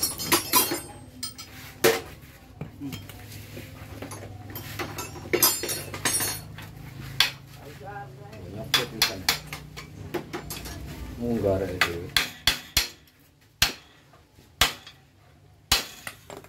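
Metal hand tools clinking and tapping against a motorcycle's rear axle and frame: a string of sharp, irregular metallic clicks and knocks, sparser and quieter in the last few seconds.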